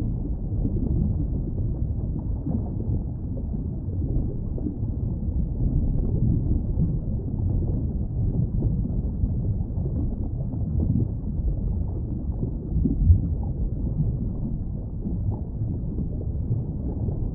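Low, steady underwater rumble of water moving around the recorder on a coral reef, with one brief louder thump about 13 seconds in.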